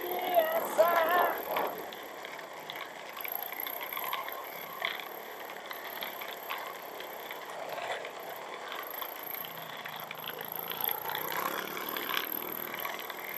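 A Honda Vario scooter on the move, heard as a steady rushing of wind and riding noise. A sung music track fades out in the first couple of seconds.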